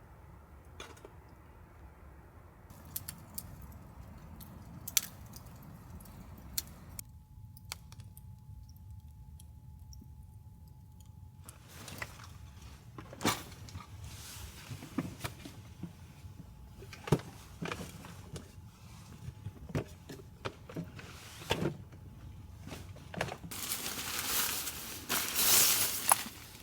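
Metal camping gear being handled: scattered light metallic clinks and knocks, growing busier after about twelve seconds, with a louder hissing rush for a couple of seconds near the end.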